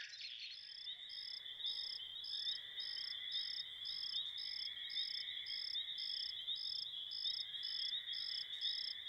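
Crickets chirping: regular chirps about twice a second over a continuous high trill.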